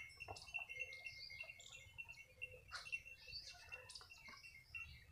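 Faint chirping of birds: many short, quick chirps repeating throughout, with a few soft scuffs and knocks mixed in.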